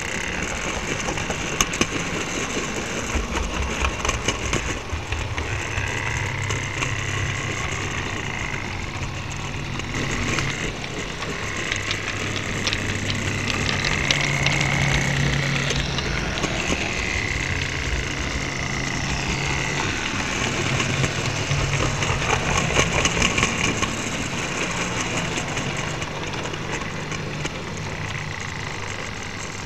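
Model railway train running, heard from on board: a steady low electric-motor hum with a whine that swells and slides in pitch several times, and scattered light clicks of wheels on the track.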